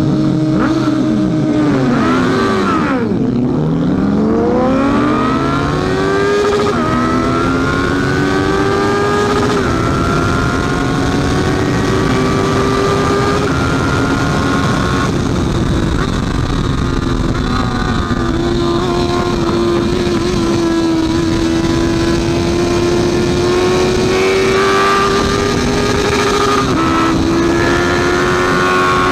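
Honda CB650F's inline-four engine at high revs, with other motorcycle engines crossing it in pitch at the start. The pitch drops and climbs back over the first few seconds, then holds high and steady with brief dips at the gear changes.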